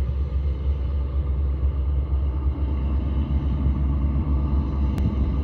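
Steady low drone of a squid-fishing boat's diesel engine running under way, with one brief click near the end.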